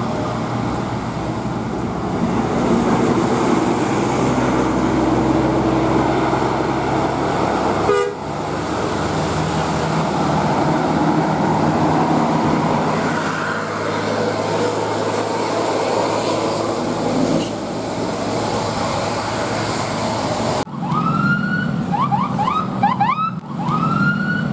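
Bus engine running with steady road noise. About three seconds before the end, a multi-tone 'telolet basuri' bus horn plays a quick tune of rising glides and short repeated notes.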